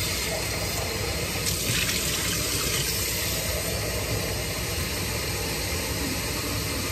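Water running steadily from a kitchen faucet into the sink.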